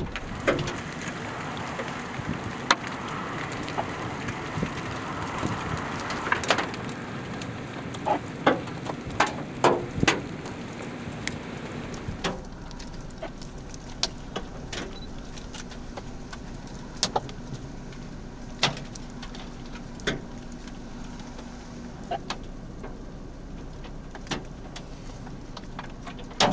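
Small hailstones, about nickel size, hitting the vehicle in sharp, irregular clicks over a steady hiss of rain. The hiss is heavier at first and eases about twelve seconds in, when a faint low hum comes in for several seconds.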